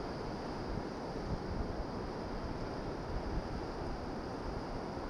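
Wind rumbling on the microphone over the steady wash of shallow sea water.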